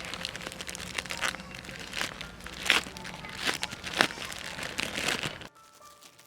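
Irregular crinkling and crunching, a dense run of sharp crackles that cuts off abruptly near the end.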